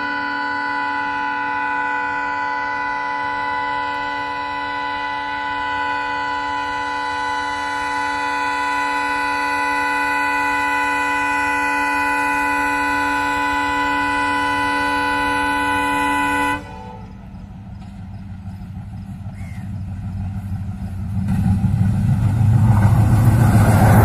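WDM-3A Alco diesel locomotive's horn sounding in one long unbroken blast, several steady tones together, cutting off suddenly about two-thirds of the way through. After a short lull, the approaching locomotive's engine and wheel rumble swell up loud near the end as it comes alongside.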